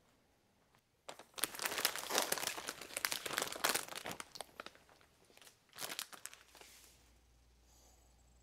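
A plastic bag crinkling and rustling as it is handled: a dense stretch from about a second in, dying down after about four seconds, and a shorter burst near six seconds.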